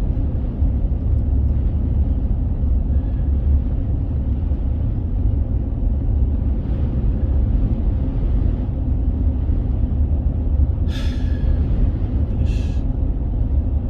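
Steady low rumble of a car driving through strong wind, heard from inside the cabin: road noise and wind buffeting the car. Two short higher sounds come near the end.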